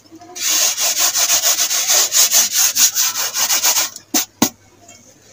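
Dry semolina being tipped and scraped off a plate into a cooking pot: a loud, gritty rasping in quick, even strokes for about three seconds, then two sharp knocks.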